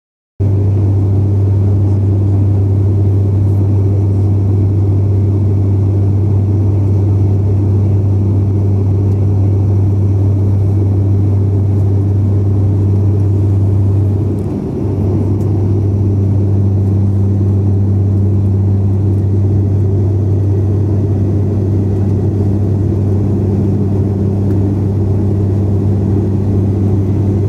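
Cabin drone of an ATR 72-600's Pratt & Whitney PW127 turboprop and six-bladed propeller in flight, heard from a window seat beside the engine: a loud, steady deep hum with a strong low tone. It starts suddenly just after the beginning and dips briefly about halfway through.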